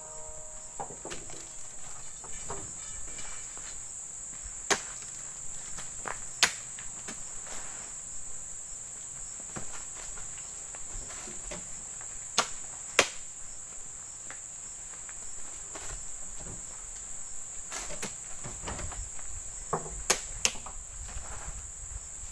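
Steady high drone of insects, with about seven sharp knocks at irregular intervals, two close pairs among them, from oil palm fruit bunches being speared on spiked poles and thrown onto a loaded truck.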